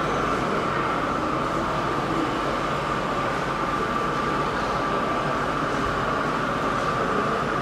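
HO scale model diesel locomotive running slowly with a train of freight cars: a steady drone with an even, unbroken tone.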